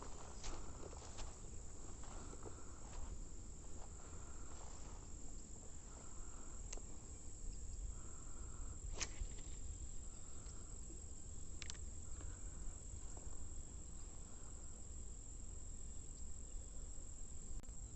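Insects chirring steadily in one high, even tone, with a lower buzzing call that comes and goes every second or two. A couple of sharp clicks partway through.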